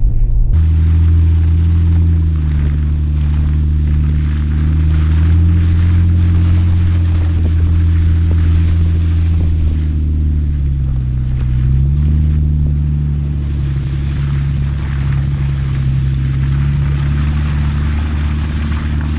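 Vehicle engine running steadily while driving, with tyre and road noise over it. The engine pitch drops for a moment about ten seconds in, then climbs again.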